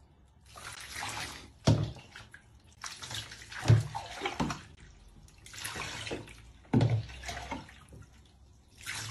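Water poured from a plastic cup over a dachshund puppy standing in shallow bathwater, splashing in several separate pours. A few sharp knocks come between them.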